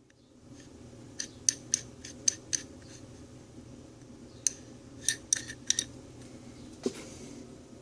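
Old Craftsman USA metal hand tool for turning and holding nuts clicking as it is handled, with a quick run of sharp metallic clicks about a second in, another a few seconds later, and a single one near the end. A faint steady hum lies underneath.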